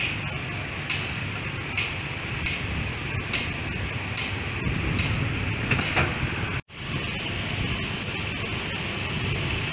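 Slow-moving train: a low diesel rumble with short metallic clacks of wheels over rail joints, spaced a little under a second apart. The sound drops out for an instant about two-thirds of the way in, then the steady rumble continues.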